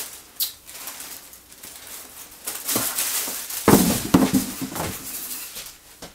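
Tissue paper and a towel-like terry bathrobe rustling as the robe is lifted out of its gift box and handled, with a louder burst of crackling and knocking about four seconds in.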